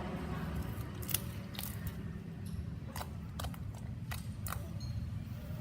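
Basic slime being worked by hand, making scattered sharp clicks and pops, with a low steady hum underneath.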